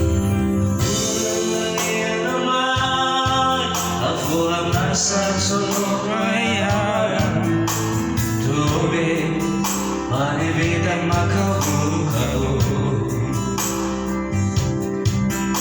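A man singing a melody over electronic keyboard accompaniment, with wavering held notes in the voice.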